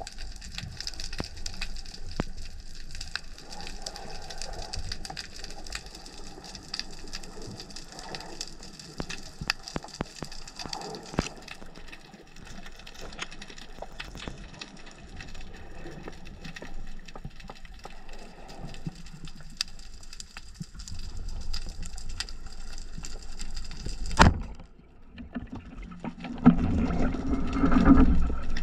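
Underwater sound: a steady fine crackling of many small clicks. Near the end comes one sharp knock, then a louder, low churning of moving water.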